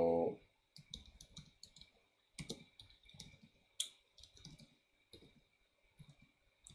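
Typing on a computer keyboard: faint, irregular key clicks in short clusters as a command is typed.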